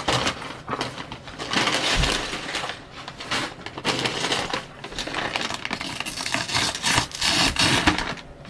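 Small plastic Lego pieces poured out of their bag, clattering and rattling onto a surface in a long stream of small clicks.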